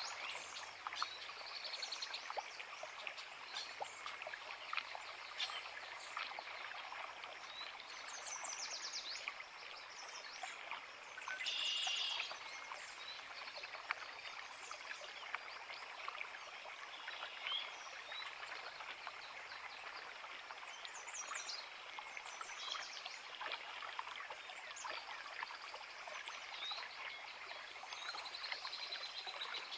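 A small creek babbling steadily, with several birds singing and chirping over it. One louder trilled call stands out partway through.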